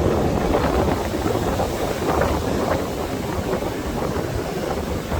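Wind buffeting the microphone in low rumbling gusts over the steady wash of ocean surf on a beach.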